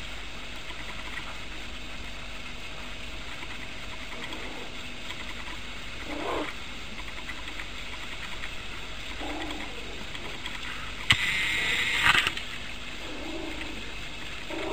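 A puppy making a few short, low vocal sounds while playing, over a steady background hiss; a sudden louder noise lasting just over a second comes about eleven seconds in.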